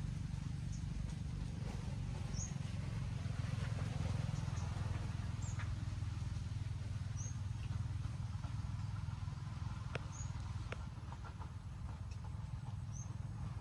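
Outdoor ambience: a steady low rumble under short, high-pitched chirps that come every one to three seconds. A couple of sharp clicks fall about ten seconds in.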